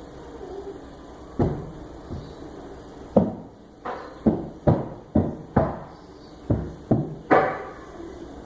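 A series of about a dozen sharp thuds or knocks, each ringing briefly. They start sparse and then come roughly two a second, the loudest near the middle and at the end.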